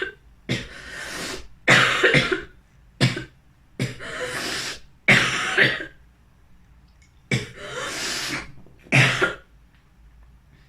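A woman in a coughing fit: a run of about eight harsh coughs with short breaths between them, stopping about nine and a half seconds in. It is her lingering chronic cough, whose cause she says is unknown.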